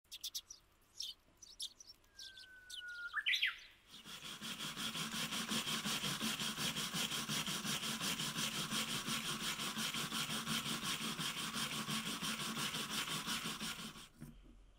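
A bird calls: a thin whistled note, then a few quick rising chirps. Then a stiff-bristled wooden hand brush scrubs back and forth along a wooden board in even, rapid strokes for about ten seconds. The scrubbing stops suddenly just before the end.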